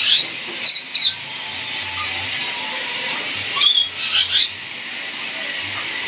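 Caged pet parrots giving short, harsh squawks: a few right at the start and about a second in, then another cluster of three or four around the middle. A steady hiss runs underneath.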